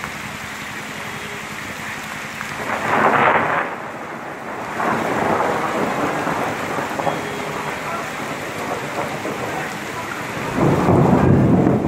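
Heavy rain pouring down steadily, with two louder surges, about three seconds in and near the end.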